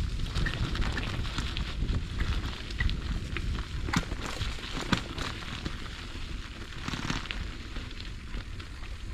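Bicycle tyres rolling over a dirt trail: a continuous low rumble and crunch, with scattered sharp clicks and crackles from grit and twigs under the wheels.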